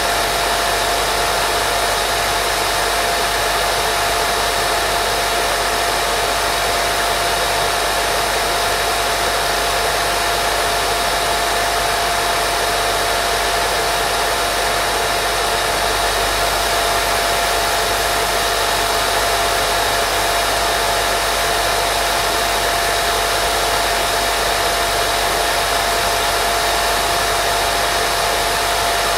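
Steady white noise for baby sleep: an even, unchanging hiss with a faint steady tone running through it.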